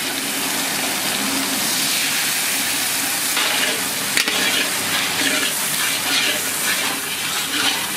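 Onions, capsicum and green chillies sizzling in a bubbling sauce in a large wok, stirred with a metal spatula, with one sharp knock about four seconds in.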